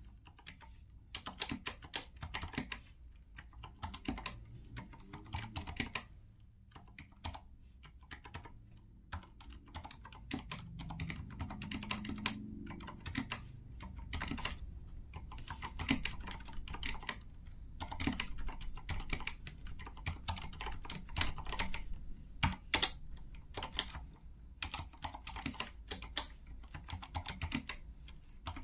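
Typing on a Corsair K70 LUX RGB mechanical keyboard with Cherry MX Silent Red switches, whose internal dampening keeps the linear keystrokes quiet. It is a steady, irregular patter of many keystrokes, with a sparser stretch about a third of the way in.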